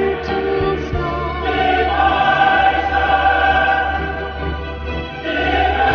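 Choir singing long held notes over music, a fuller chord coming in about a second and a half in.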